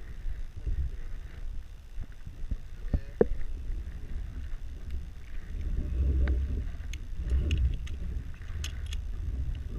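Uneven low rumble of wind buffeting the microphone, with a few light clicks about three seconds in and a quick run of high ticks near the end.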